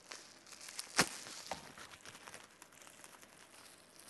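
Pink plastic bubble-wrap packaging crinkling softly as it is handled and pulled open, with one sharp crackle about a second in.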